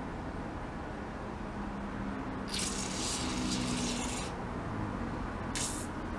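Aerosol can of WD-40 spraying into a ratchet head to flush it out: one hiss of about two seconds, then a short second squirt near the end.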